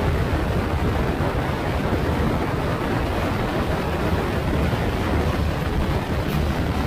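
Yamaha NMAX scooter with an RS8 aftermarket CVT, riding at a steady speed: the engine and drivetrain drone under a steady rush of wind and road noise.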